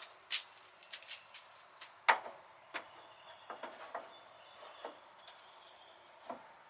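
Irregular clicks and knocks of cold air intake parts being handled and test-fitted by hand, about eight in all, with the loudest knock about two seconds in.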